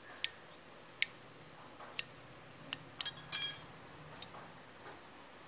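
Steel tweezers prying a metal RF-shield cover off a Redmi 8A phone motherboard: a series of sharp metallic clicks, with a short ringing clink a little past three seconds in as the thin metal lid comes free.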